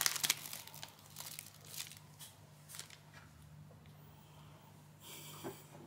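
Crinkling, crackling rustles while a kitten plays: a dense flurry at the start, then a few scattered crackles, and a brief rustling hiss about five seconds in.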